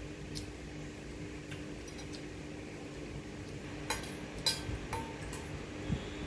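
Cutlery clinking against a plate while eating: a few light taps, then two louder ringing clinks about four and four and a half seconds in.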